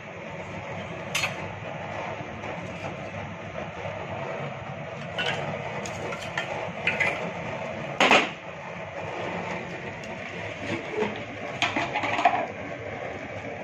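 Metal tongs clinking against a small steel bowl as a lump of hot charcoal is set into it. There are a handful of short sharp clicks, the loudest about eight seconds in, over a steady low hiss.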